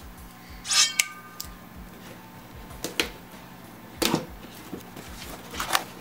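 Cardboard and plastic packaging being handled and opened: a short scraping rustle a little under a second in, then scattered light clicks and knocks as the box parts are pulled apart and an inner box lid is lifted.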